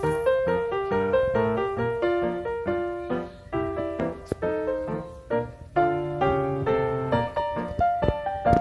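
Background piano music: a gentle, flowing melody of quick single notes over soft chords.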